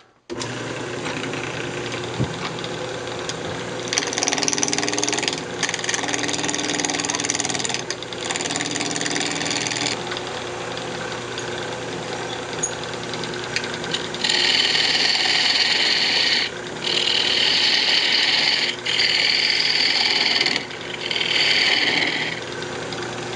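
Wood lathe running steadily while a hand-held turning tool cuts a spinning redwood blank to round it. It makes a run of cuts early on, then four louder passes of a second or two each, with short breaks between.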